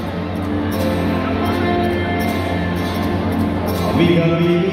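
Live band playing a slow ballad on keyboards and guitars, with the male lead singer's voice coming in near the end.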